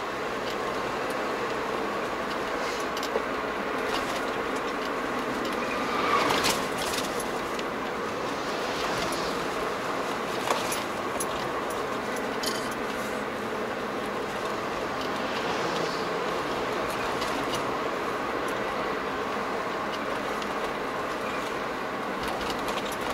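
Car driving at a steady road speed heard from inside the cabin: continuous engine and tyre noise, with a few sharp clicks and a brief louder rattle about six seconds in.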